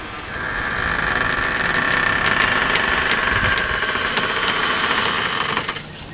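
A motor running steadily with a high whine. It builds up in the first second and cuts off near the end.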